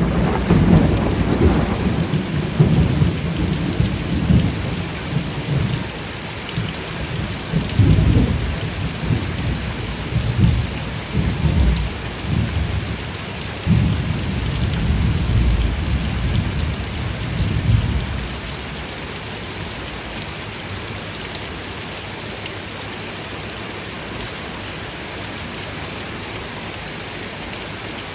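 Steady rain falling, with rolling thunder rumbling low and swelling several times, then dying away about 18 seconds in, leaving only the rain.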